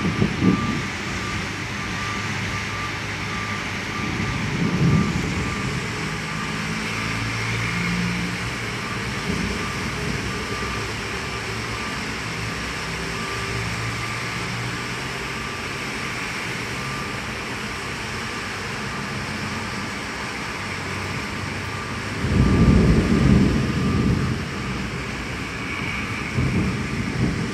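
A 40-ton lorry's reversing alarm beeping over and over at one steady pitch, over a constant hiss of wet traffic. A louder low rumble swells about 22 seconds in.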